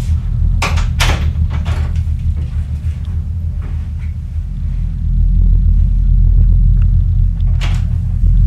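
A loud, low droning rumble that gets louder about five seconds in, with a few sharp clicks or knocks near the start and again near the end.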